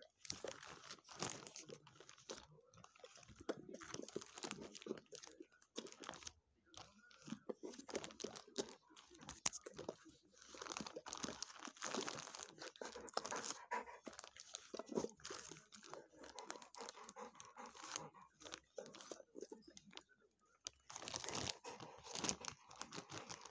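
A large dog crunching and chewing hard snacks, in bouts of quick crackly crunches with short pauses between them.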